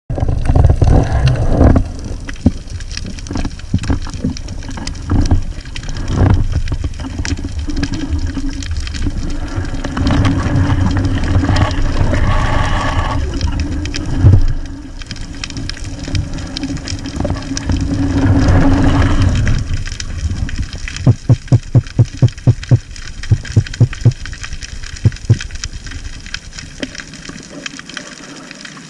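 Underwater sound picked up through an action camera's waterproof housing while a spearfisher swims: a continuous low rumble of water movement with many small clicks and knocks. A steady hum runs for several seconds midway, and late on there is a run of about a dozen quick, regular thumps, about three a second.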